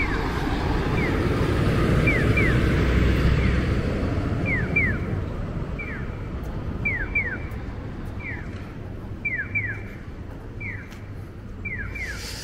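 Electronic pedestrian crossing signal giving its bird-like chirps for the walk phase. The short falling chirps come singly or in pairs about once a second over passing traffic, and the traffic fades after the first few seconds.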